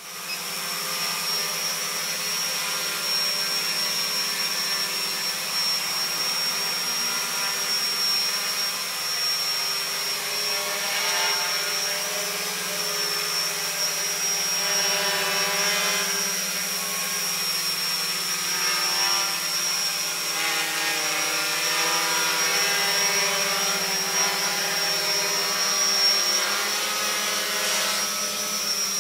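Homebuilt quadcopter's four electric motors and propellers buzzing steadily in flight, the pitch wavering now and then.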